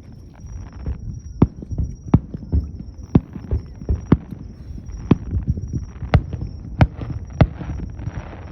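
Fireworks display: aerial shells bursting in a quick, uneven run of sharp bangs, with a low rumble of booms and echoes between them.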